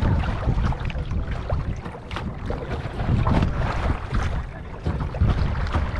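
Wind buffeting the microphone on a moving kayak, with water slapping and splashing against the bow in short bursts about once a second.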